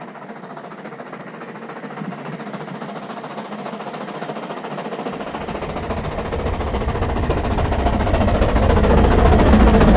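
Narrow-gauge steam locomotive approaching under way, its running noise growing steadily louder as it nears, with a deep rumble coming in about halfway.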